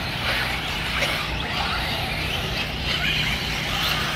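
Radio-controlled off-road race cars running on a clay track, their motors whining up in pitch in short bursts as they accelerate, over a steady outdoor hiss.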